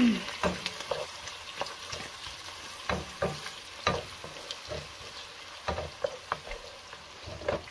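Chopped onion sizzling in hot oil in a pot, with a wooden spoon stirring it and knocking and scraping against the pot in frequent short strokes.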